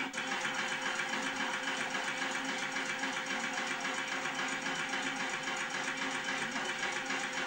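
Steady, rapid mechanical running noise with an even clatter, like a small motor or engine, after a sharp click at the very start.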